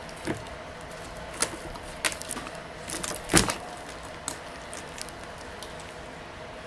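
Thin hookup wires being handled and worked with a small hand tool: scattered sharp clicks and short rustles, the loudest about three and a half seconds in, over a faint steady hum.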